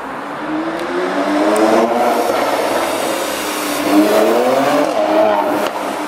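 Renntech-tuned 2018 Mercedes-AMG C43's twin-turbo V6 accelerating past through its exhaust. The engine note climbs in pitch, then climbs again about three and a half seconds in.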